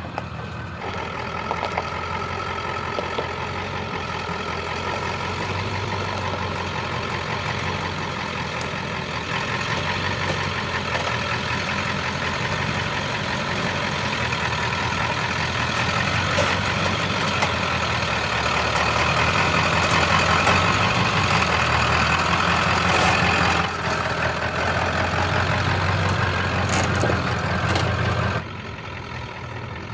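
Ford F350's 7.3 L Powerstroke turbo-diesel V8 running steadily at low speed as the truck crawls a rocky trail, with a couple of abrupt changes in level near the end.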